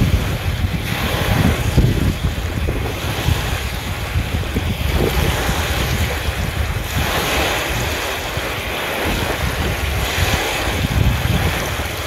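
Small wind-driven river waves breaking and washing over a shallow pebble shore, the wash swelling every few seconds. Heavy wind buffets the microphone with a steady low rumble.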